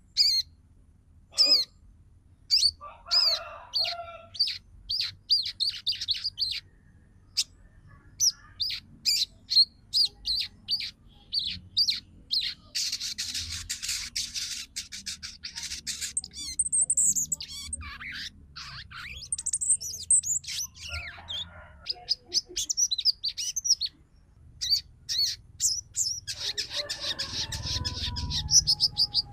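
Female sogon calling in fast, sharp chirps and chattering trills, with a few sweeping whistles. This is the call a hen gives to draw males and provoke them to sing.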